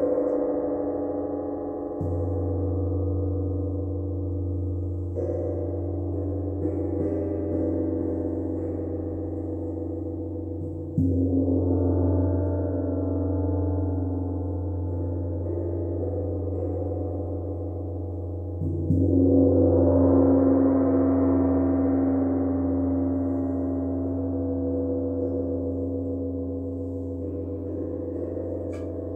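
Gong played for sound therapy: soft strokes every several seconds, each swelling into a long, deep ringing tone full of overtones that carries on between strokes.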